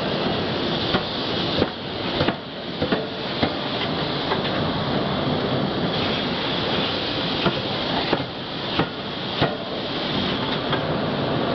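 Forging-shop din: forging presses and hammers running steadily, with several sharp metal strikes at irregular intervals as hot steel workpieces are forged in the dies.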